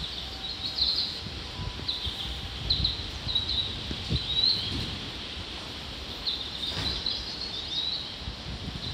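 Small birds chirping in short, repeated calls over a steady low rumble.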